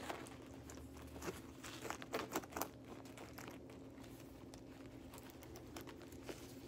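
Quiet rustling and scattered light clicks of a monogram coated-canvas handbag and its fitted insert being handled as the insert is slid into place, busiest in the first few seconds and sparser after.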